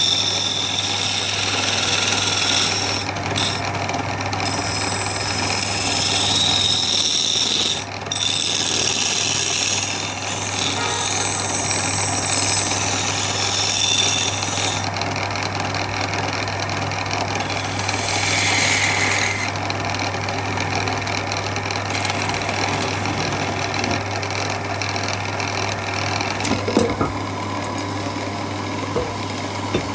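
A machine running steadily with a constant low hum and high whining tones; the whine drops away about halfway through.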